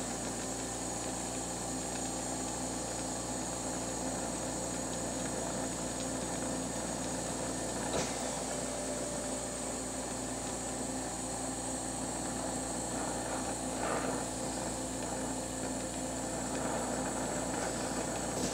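Glassworking bench torch flame hissing steadily as glass is heated in it, over a steady hum, with one faint tick about halfway through.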